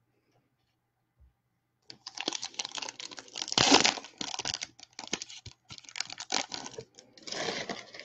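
Foil wrapper of a trading-card pack being torn open and crinkled, with the cards inside clicking as they are handled, in a quick run of crackles and clicks starting about two seconds in.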